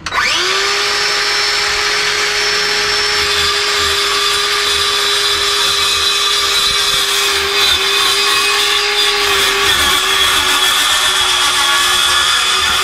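Electric jigsaw cutting through a wooden floor panel: the motor starts at once and runs at a steady, even whine, with the rasp of the blade in the wood.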